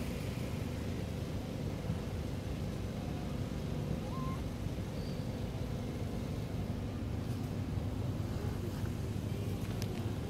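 Steady low hum of an engine running at idle, with no change in pitch.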